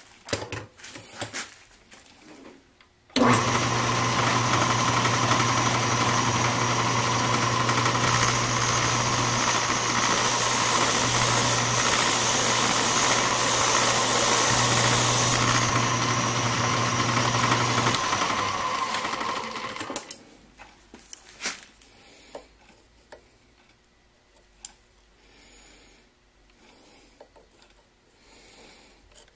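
Craftsman 109 bench lathe switched on about three seconds in and running steadily with a motor hum and hiss while the tool turns down a steel drill-rod blank, then switched off and winding down. A few faint clicks follow.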